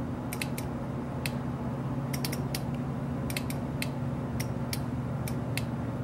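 Light, irregular small clicks and ticks from the plastic headlight harness plug and wiring being handled, over a steady low hum.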